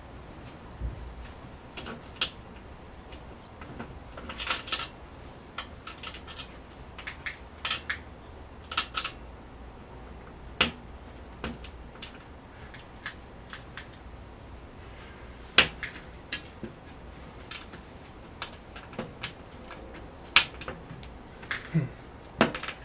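Scattered, irregular sharp clicks and light metallic taps, a few louder than the rest: a thin metal wall plate being handled and shifted against a wall.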